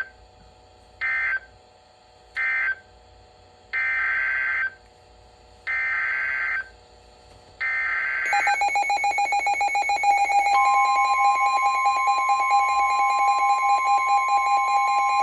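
NOAA Weather Radio EAS signalling: three short SAME data bursts (end-of-message) for the finished warning, then three longer SAME header bursts announcing the next alert, each a harsh two-tone digital warble about a second apart. About 8 seconds in a pulsing electronic alarm beep starts, and about two seconds later the steady 1050 Hz warning alarm tone joins it.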